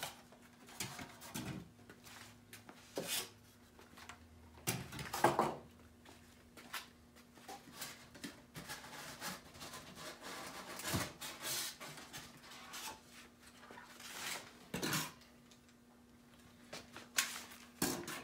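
Foam packing corners being pulled off a boxed dishwasher and set down: scattered knocks and rubbing scrapes, with a faint steady hum underneath.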